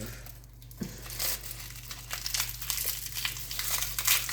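Dry, papery crinkling and crackling of garlic skin being peeled off a clove, in quick irregular ticks.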